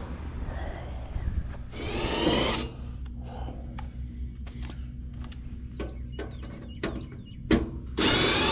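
A cordless power driver runs in two short spurts, each about a second long with a rising whine: one about two seconds in and one near the end. Scattered handling clicks and rustling come between them.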